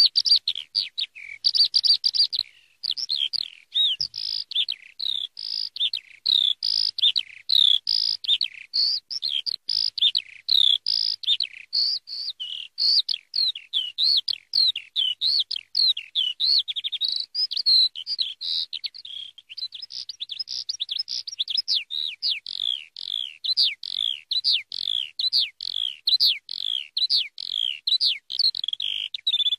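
Eurasian skylark singing: a continuous, rapid stream of high chirps and whistles with no pause.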